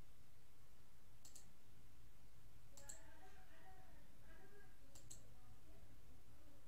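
Three sharp double clicks, about two seconds apart, over a steady low hum.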